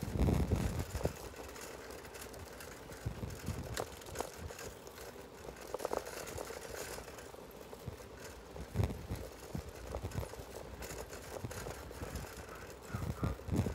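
Outdoor walking ambience: irregular low rumbles of wind on the microphone, heaviest at the start and near the end, with a few light clicks.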